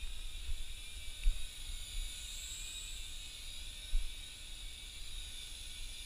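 Micro 3-channel RC helicopter in flight, its tiny electric motors and rotors giving a steady high whine that drifts slightly up and down in pitch. A few low bumps sound underneath.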